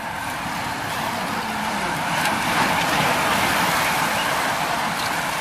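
Racing bicycles going past close by: a hiss of tyres and drivetrains that swells to a peak about three seconds in and then fades.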